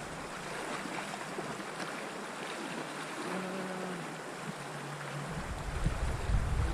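River water flowing steadily. A low rumble of wind on the microphone comes in about five seconds in.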